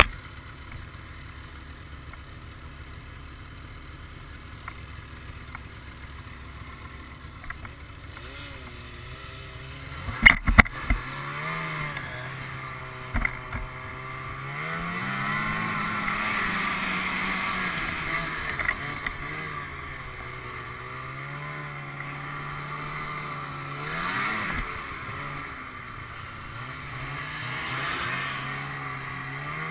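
Ski-Doo snowmobile engine running low and steady, then a few sharp knocks about ten seconds in. After them the engine note rises and falls with the throttle.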